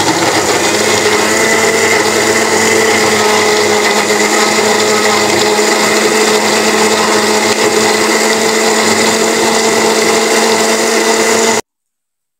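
Countertop electric blender running steadily with a constant motor whine as it blends peeled orange segments into juice, then switched off abruptly near the end.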